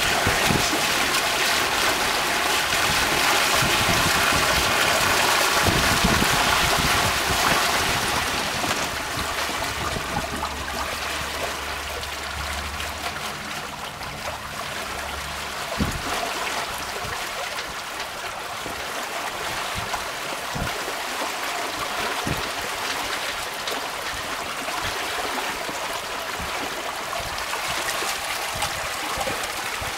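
Water rushing and splashing along the hull and stern of a sailboat under way: a steady wash, louder for the first several seconds, then easing, with a few light knocks in the second half.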